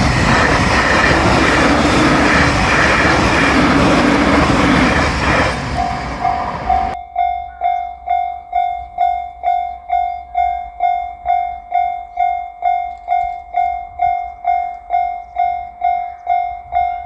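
JR Shikoku 8000 series limited express electric train passing over a level crossing, a loud rush of wheel and rail noise, while the crossing's warning bell rings about twice a second. The train noise stops abruptly about seven seconds in, and the bell then rings on alone at the same even pace.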